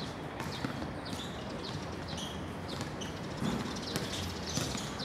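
Basketball bouncing and players' footsteps on a hard outdoor court, heard as irregular short thuds and knocks over a steady background hum.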